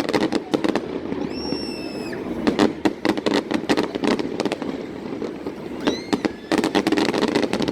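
Aerial fireworks display: rapid volleys of bangs and crackling, thickest at the start, in the middle and in a dense finale-like burst near the end. A long steady high whistle sounds about a second and a half in, and short rising whistles come just before the last volley.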